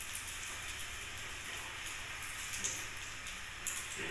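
Pancake batter frying in a small oiled nonstick pan on a gas burner: a steady sizzling hiss with scattered crackles. A few short clicks come about two and a half and three and a half seconds in, as the silicone spatula works the pancake in the pan.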